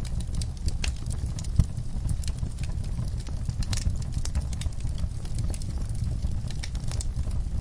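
Wood fire in a fireplace crackling, with irregular sharp pops and snaps over a steady low rumble; one louder pop comes about a second and a half in.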